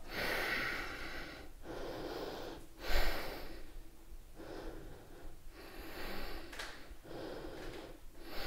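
A woman breathing audibly and steadily while she holds a standing yoga pose, in even inhales and exhales of about a second each, with one sharper, louder breath about three seconds in.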